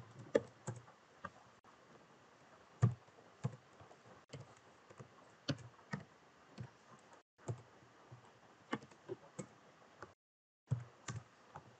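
Slow, irregular keystrokes on a computer keyboard: a scattering of single clicks with short pauses between them, typing out code.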